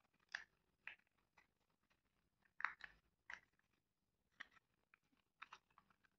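Faint, scattered clicks and light rustles of a small cardboard box being handled and its end flap pried open.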